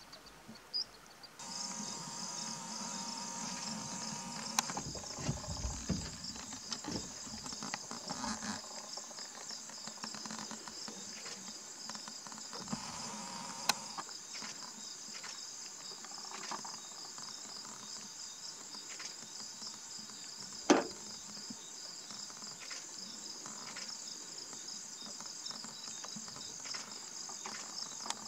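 Steady, high-pitched chorus of night insects trilling. Under it in the first several seconds runs a low rumble, and there are a few sharp clicks, the loudest about two-thirds of the way in.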